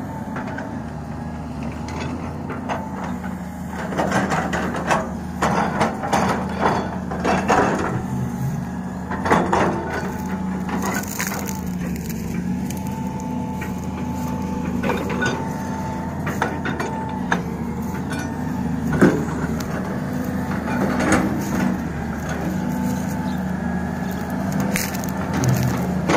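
Excavator digging a drain: its diesel engine runs steadily underneath while the bucket works the ground, with irregular crunching and cracking like splintering wood, busiest about four to eight seconds in and again near the end.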